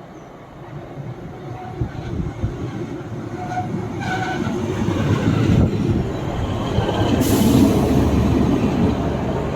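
A train running past on the railway line, its rumble building steadily and loudest about seven to eight seconds in, with a few faint steady tones above it.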